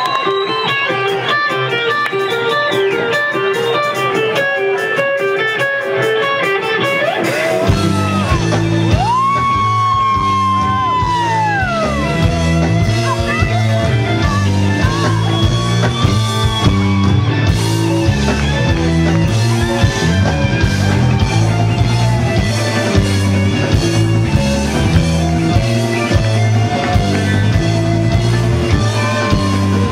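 Live rock band: an electric guitar picks a repeating riff on its own, then bass and drums come in about eight seconds in, and a long held lead guitar note slides down soon after.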